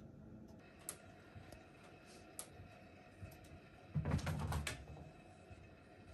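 A cat pouncing and scrambling on a carpeted floor: a short burst of soft thumps and scuffling about four seconds in, with a few faint clicks before it.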